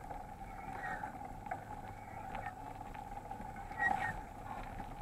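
Mountain bike rolling along a paved road: a steady hum of tyres and drivetrain as picked up by a handlebar or helmet action camera, with a brief faint sound about four seconds in.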